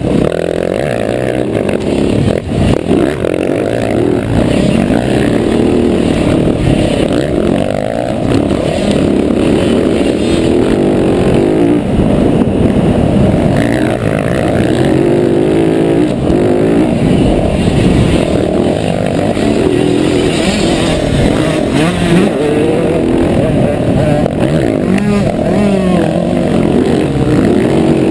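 Dirt bike engine running hard and revving up and down as it climbs a rough dirt trail, loud throughout.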